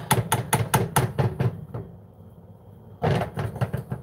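Silicone whisk beating thick churro dough in a saucepan, knocking and scraping against the pot about five times a second. The beating stops about a second and a half in, and a short clatter of the whisk against the pot comes near the end.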